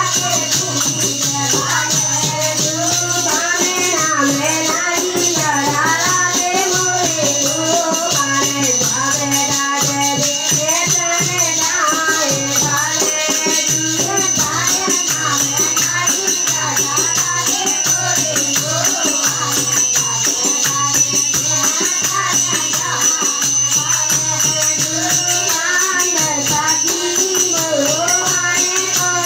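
Group singing to a harmonium, with a hand-held rattle or jingle instrument shaken in a fast, even rhythm throughout.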